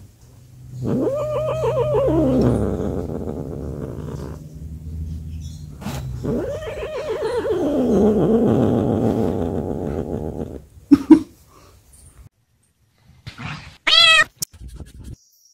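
Domestic cat giving two long, drawn-out yowling meows that waver in pitch, each several seconds long. Near the end, after a brief knock, a second cat gives one short meow.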